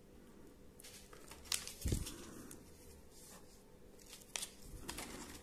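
Close-up handling noise: rustling and light taps as baking soda is shaken out of its packet onto a small plastic part, with a knock about two seconds in and a few sharp clicks later on.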